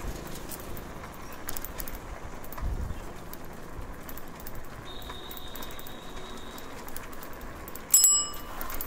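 Street background noise of a city lane with scattered faint clicks. Near the end a bell rings once, sudden, loud and brief.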